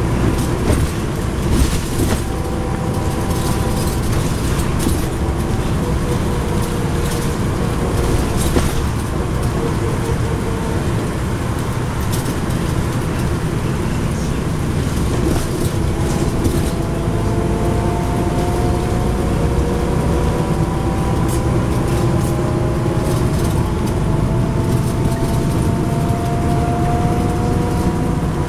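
Cummins ISL9 diesel engine and drivetrain of a NABI 40-SFW transit bus, heard from inside the cabin near the back while cruising at highway speed: a steady low rumble with light rattles. Partway through, a whine rises slowly in pitch as the bus picks up speed.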